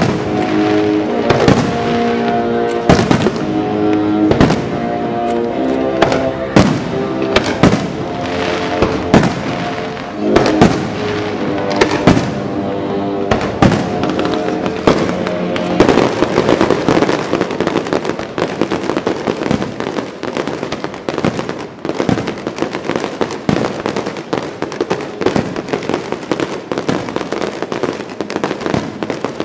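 Fireworks bursting one after another over loud accompanying music. From about halfway the music fades and dense, rapid crackling takes over.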